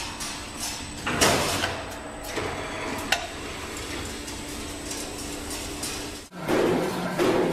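Chain-link fence making machine running, a steady mechanical clatter with a low hum, a loud clank about a second in and a sharp click about three seconds in. About six seconds in it cuts off abruptly and rhythmic background music follows.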